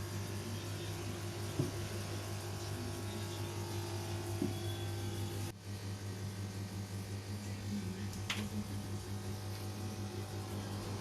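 Steady low electrical hum over a background hiss, with a couple of faint clicks and a brief drop in level about halfway through.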